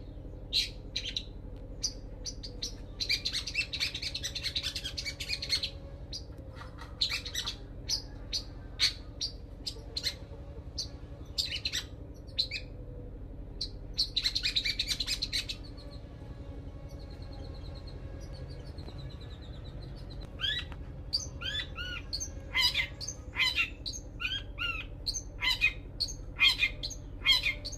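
Long-tailed shrike (cendet) singing a varied song of sharp chirps, dense buzzy trills and quick swooping notes, mimicking the song of the sogon that it has learned. A steady low hum runs underneath.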